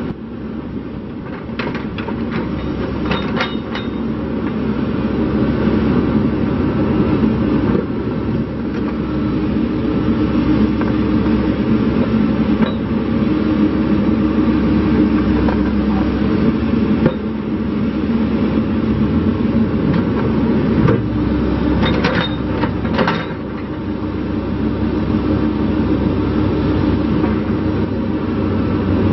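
John Deere 410J backhoe loader's diesel engine running, growing louder over the first few seconds and then holding steady. A few metallic clanks come about two to four seconds in and again about twenty-two seconds in.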